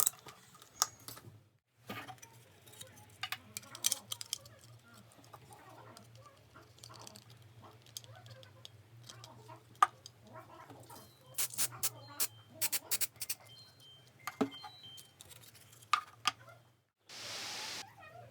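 Scattered sharp clicks, taps and rattles of small hard parts being handled, with clusters of quick ticks midway and a steady low hum underneath. Near the end comes a steady hiss lasting about a second.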